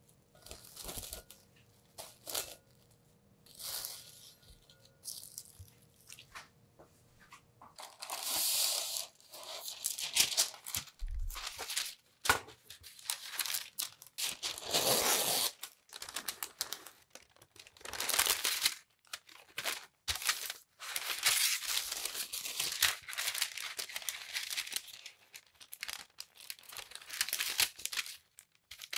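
Baking paper being handled to line a metal pound cake mold: short bursts of crinkling, tearing and folding. The first several seconds hold only a few light taps and clicks before the rustling starts.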